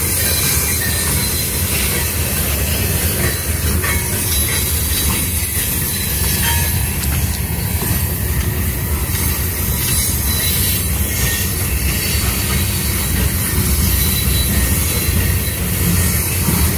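Freight cars rolling steadily past on the rails: a continuous rumble of wheels on track with some high wheel squeal.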